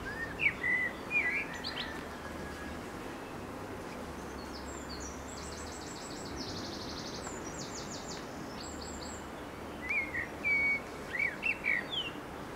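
Songbirds singing over steady background noise: short whistled phrases about a second in and again near the end, with a higher, buzzy, rapidly pulsed trill in the middle.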